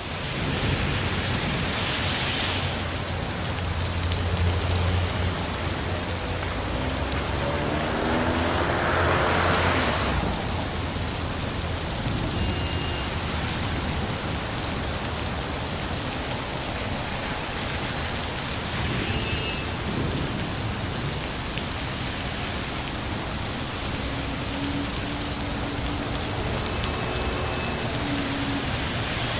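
Steady rain falling, with a low rumble that swells over the first ten seconds and fades out. A few short, faint high tones sound later on.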